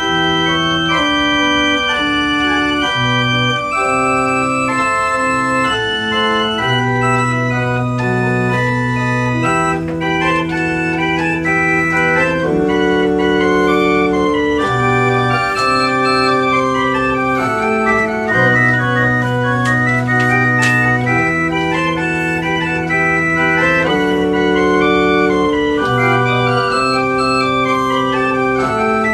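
Small chamber pipe organ playing a slow polyphonic piece. Held bass notes change every couple of seconds under several moving upper voices.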